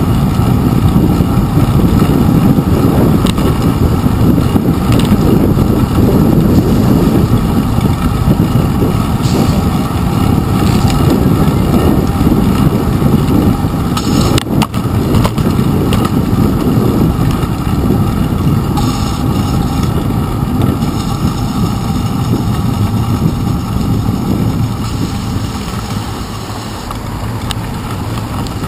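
Steady low rumble of wind and road vibration picked up by a handlebar-mounted GoPro Hero 2 as the bicycle rolls over wet pavement, with a single sharp knock about halfway through. The rumble eases a little near the end.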